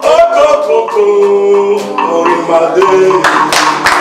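A man singing live into a microphone, holding a long steady note about a second in. Sharp rhythmic strokes join the voice near the end.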